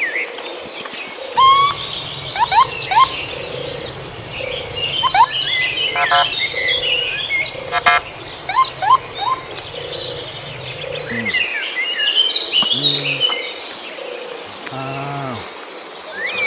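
Many small birds chirping and twittering, with a steady high insect buzz underneath. A low hum runs through much of it and stops about two-thirds of the way in.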